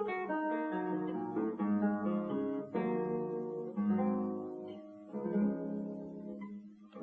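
Classical guitar played solo: plucked melody notes over ringing bass notes, with a sharp chord about three seconds in, then softer notes that die away toward the end.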